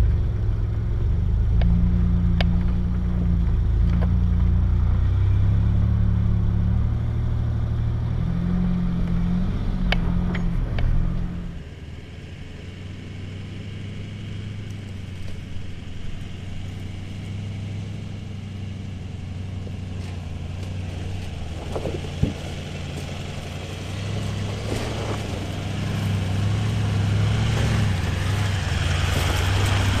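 A 4WD's engine working at low speed over rough off-road ground, loud with pitch changes, then dropping suddenly to a quieter, steadier run about eleven seconds in. A single sharp knock comes a little past the middle, and the engine builds up again near the end.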